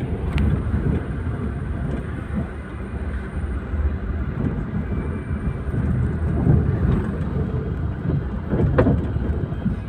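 Steady low rumble of road and engine noise from a car driving in traffic.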